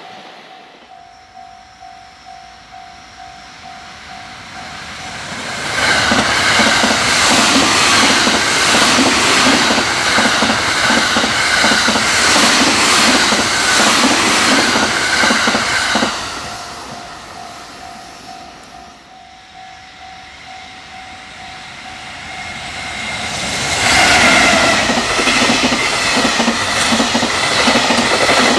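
Japanese level-crossing alarm ringing steadily, then an electric-hauled freight train passing at high speed with a rapid, even clickety-clack of wheels over rail joints and a heavy rumble that stops abruptly about sixteen seconds in. The crossing alarm is heard again before a second freight train arrives near the end, its locomotive's traction motors whining above the wheel noise.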